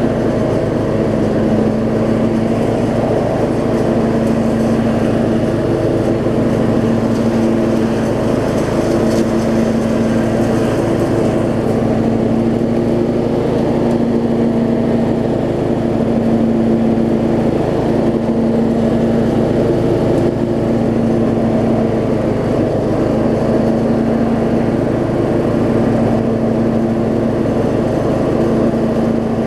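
Riding lawn tractor's 15.5 hp Briggs & Stratton engine running at a steady speed while the mower is driven.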